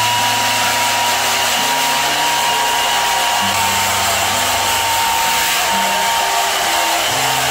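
Corded wall-mounted hair dryer blowing steadily, a dense even rush of air with a thin steady whine from its motor.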